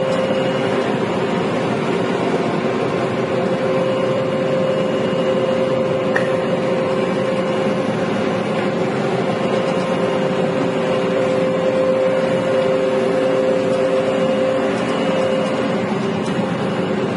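Combine harvester running while cutting wheat, heard from inside the cab: a steady machine drone with a constant hum over it.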